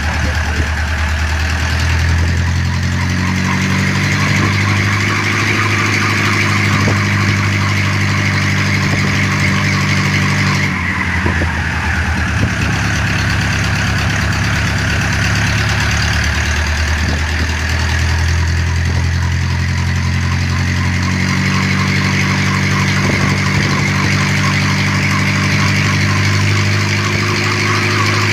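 Engine of a homemade helicopter running steadily on a ground run, revving up a few seconds in, dropping back suddenly about 11 seconds in, then revving up again after about 21 seconds.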